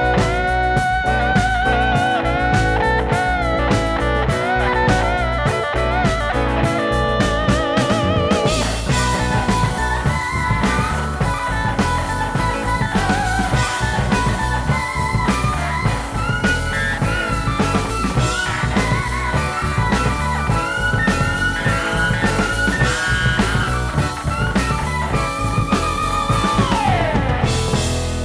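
Instrumental passage of a 1970s hard rock song: sustained, wavering lead guitar lines over bass and drums, with a long downward slide near the end.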